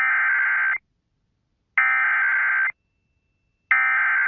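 Emergency Alert System SAME header: three identical bursts of digital data tones, each a little under a second long with about a second of silence between them. This is the coded opening of an alert, here carrying a severe thunderstorm warning.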